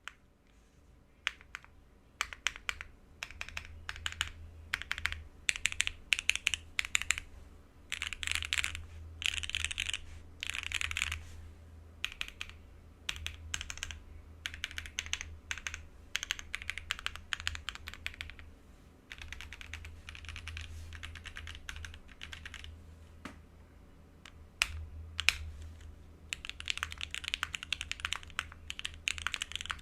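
Typing on a Cycle7 mechanical keyboard with Gateron Oil King linear switches, an FR4 plate, no foam and GMK keycaps. It starts with scattered single keystrokes, then comes in fast runs of typing, with one louder single stroke a few seconds before the end.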